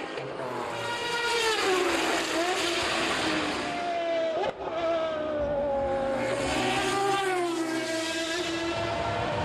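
Sports-prototype race car engines at speed, their pitch falling and rising several times as cars pass, with a brief sudden drop in level about halfway.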